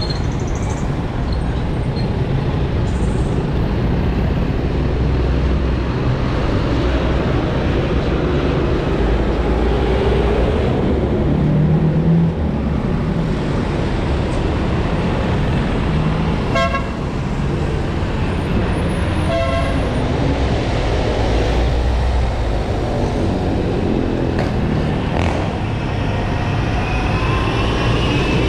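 Road traffic heard from a bicycle: a steady rumble of passing motor vehicles' engines and tyres, with engine pitch rising and falling as vehicles go by. A little past halfway come two vehicle horn toots about three seconds apart, the second one longer.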